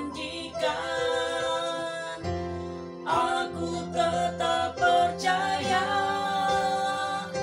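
A woman singing a slow Indonesian worship song, accompanied by an electronic keyboard.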